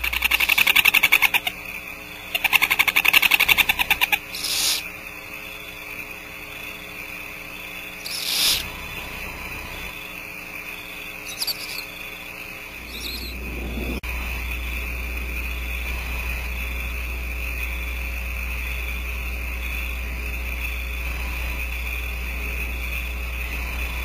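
Barn owls at the nest giving harsh rasping hisses: two long rasps of about a second and a half each in the first four seconds, then a few shorter ones. A steady high whine and a low hum run underneath.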